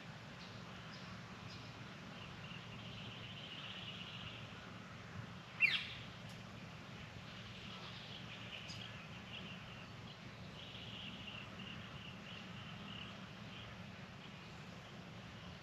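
Quiet outdoor ambience: a steady low hum and faint high buzzing, broken once about five and a half seconds in by a single short, sharp bird call that falls in pitch.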